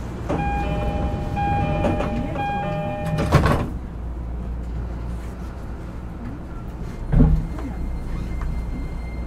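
E231 series commuter train's door chime sounding repeatedly over the train's low rumble. The sliding doors then close with a loud thud about three seconds in, followed by a second thump a few seconds later. Near the end, the Hitachi IGBT VVVF inverter begins a faint rising whine as the train starts to pull away.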